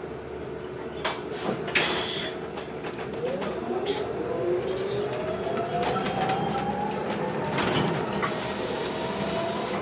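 City transit bus pulling away and accelerating, its drive whine rising steadily in pitch over several seconds, with interior rattles and clicks about a second in.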